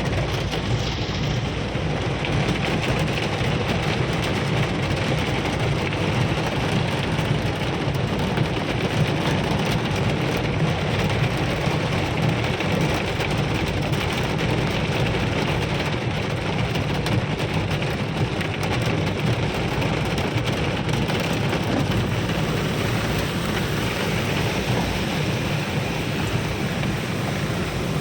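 Heavy rain pouring steadily, a dense even hiss with a steady low rumble underneath.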